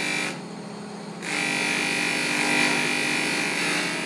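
Bench polishing motor running with a steady hum while a brass piece is pressed against its spinning buffing wheel, giving a hissing whir with a high whine. The whir stops briefly just after the start and comes back about a second in.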